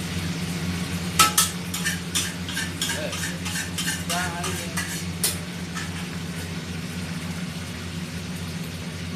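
Stir-frying kwetiau noodles with egg: a metal spatula clanks and scrapes against the pan about a dozen times in the first half, over steady frying and a low hum. The strikes stop after about five seconds and only the frying continues.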